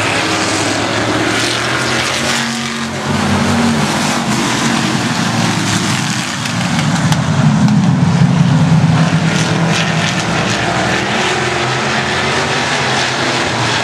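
A field of stock cars racing in a pack around a short oval track, many engines running together. The sound swells loudest about halfway through as the pack passes close by.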